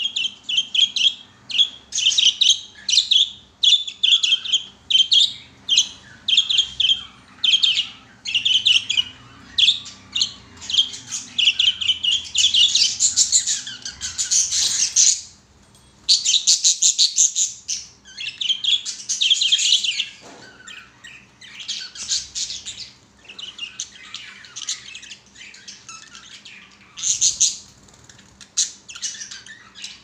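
A flock of budgerigars chattering: rapid high chirps and squawks, about two a second at first, running together into dense chatter around the middle, then thinning out near the end.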